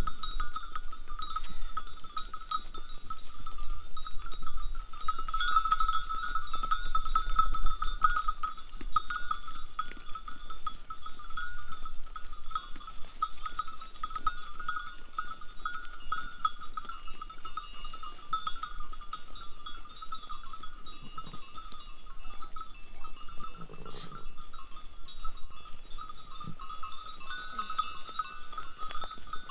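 Bells on a grazing herd of sheep and goats clanking and jingling without pause, their ringing centred on one high pitch.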